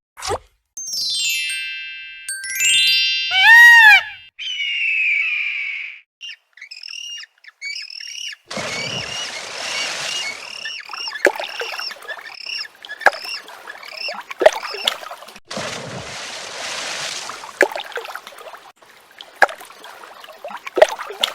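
A run of sound effects: a few quick falling whistle tones and one loud whistle that rises and falls, a short hiss, then a long string of bird-like chirps, several a second, over bursts of rushing noise.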